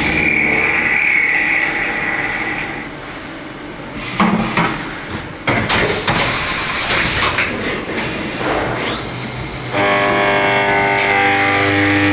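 Vertical machining centre (VMC) running: a steady high-pitched whine, then a few seconds of sharp knocks and rushing noise, then a brief rising whine, after which the machine settles into a steady whine of several tones together.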